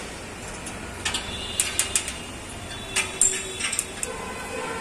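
Scattered sharp metallic clicks and clinks, in two short clusters, over a steady low background noise on a steel-framed construction site.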